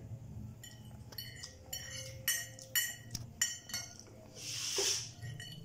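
Metal fork clinking against a ceramic plate about six times, each strike ringing briefly, as it scrapes up the last bits of food. Near the end comes a short, loud hiss that swells and fades.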